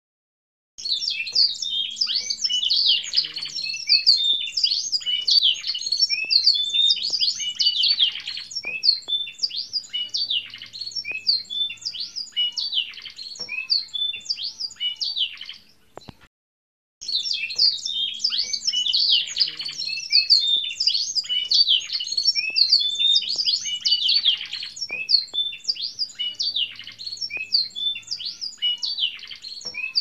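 Domestic canary singing a long, unbroken song of rapid trills and chirps. It stops for about a second around halfway through, then starts again.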